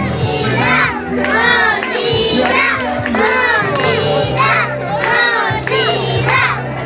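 A crowd of many voices cheering and shouting over music, with a steady low bass and sharp claps.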